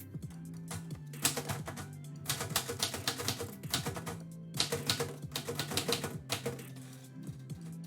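Typewriter keys striking in quick runs, in three bursts of a second or two each, over background music.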